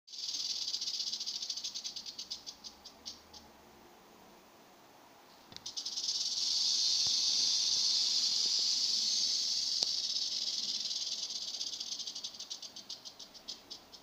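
Western diamondback rattlesnake buzzing its tail rattle in defensive warning. The dry buzz slows into separate clicks and stops after about three seconds. It starts again about five and a half seconds in, runs steady for several seconds, and slows again into separate clicks near the end.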